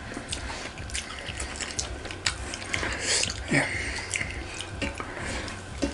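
People eating fish curry by hand: chewing, lip smacks and small wet clicks, with a brief sharper hiss about three seconds in.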